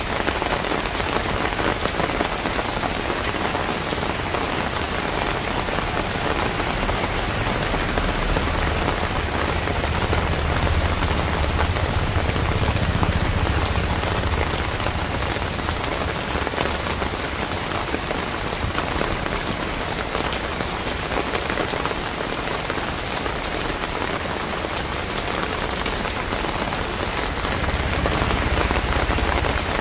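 Steady rain falling on a wet paved street, with a low rumble swelling briefly about ten seconds in and again near the end.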